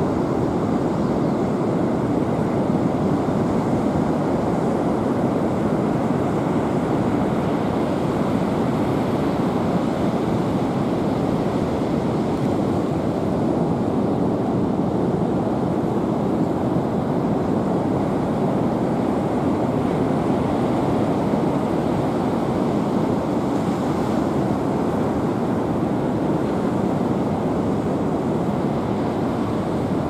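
Ocean surf on the shore: a steady, unbroken wash of noise, with wind on the microphone.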